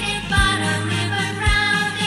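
Children's nursery-rhyme sing-along music with a steady beat, its bass note striking about once a second.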